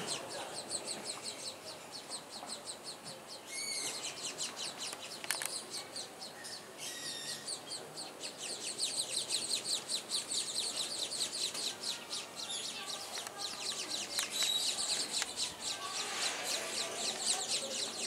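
Small birds chirping steadily in fast, high-pitched trills of short repeated notes, growing louder and busier about halfway through.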